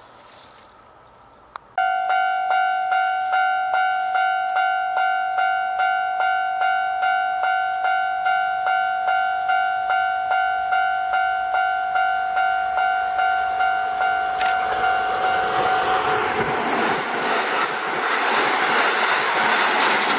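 A Japanese level-crossing warning bell starts suddenly about two seconds in and rings steadily at about two strikes a second as the crossing closes. Near the end a Kintetsu train's rumble rises and swells over the bell as the train approaches and passes.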